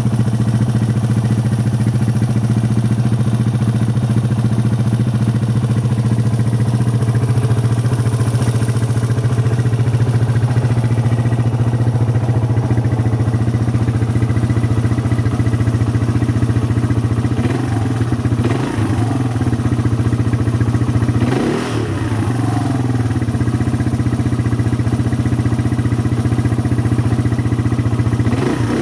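Suzuki LT230S quad's air-cooled single-cylinder four-stroke engine idling steadily, then briefly revved two or three times in the second half, its pitch rising and falling each time.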